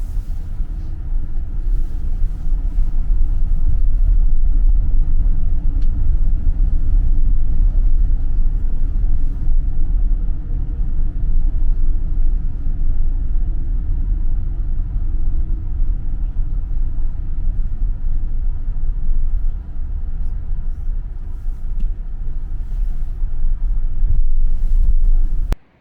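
Loud, steady low rumble of a moving vehicle, stopping abruptly near the end.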